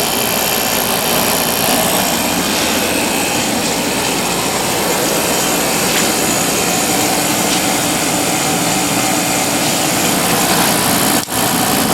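Whirlpool 10,000 BTU window air conditioner running on cool, its fan and Matsushita compressor making a loud, steady noise. The compressor sounds angry. The noise breaks off for an instant near the end.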